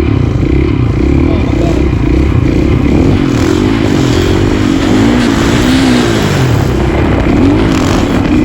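KTM supermoto engine running under riding load, its pitch rising and falling repeatedly as the throttle is rolled on and off.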